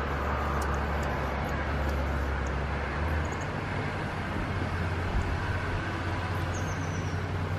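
Steady low outdoor rumble, with a few faint high ticks and a short falling squeak near the end from Anna's hummingbirds at a sugar-water feeder.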